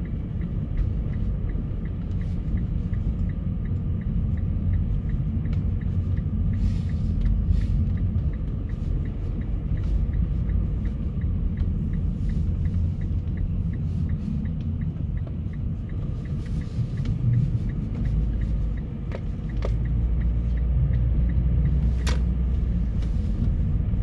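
A car driving on a snow-covered road: a steady low rumble of engine and tyres that grows heavier after about 19 s. Faint quick ticking runs through roughly the first half, and a single sharp click comes near the end.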